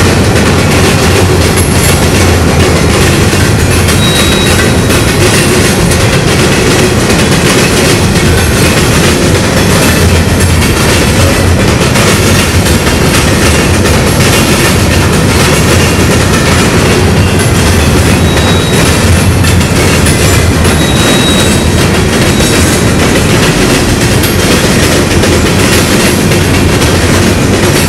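Empty open-top rock hopper cars of a freight train rolling past, their wheels clattering steadily over the rail crossing diamonds. A faint high wheel squeal comes through briefly about three times.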